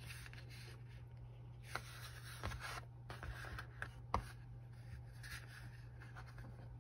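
Faint rustling and rubbing of fabric layers being handled and lined up, with two light ticks, one about two seconds in and one about four seconds in, over a steady low hum.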